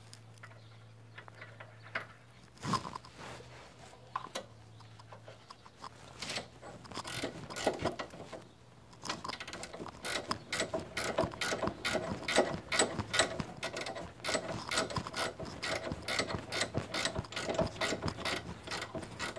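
A 17 mm ratcheting spanner clicking as it is swung back and forth on the upper nut of a front anti-roll bar drop link, undoing it. The clicks are scattered at first, then turn into quick, nearly continuous ratcheting from about six seconds in.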